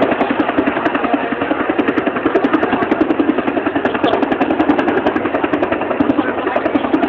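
Helicopter hovering, its rotor beating in a fast, steady pulse.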